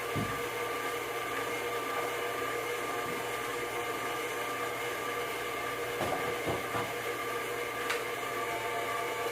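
Electric planetary stand mixer running steadily at constant speed: a motor hum with a steady whine on top, and a few faint knocks.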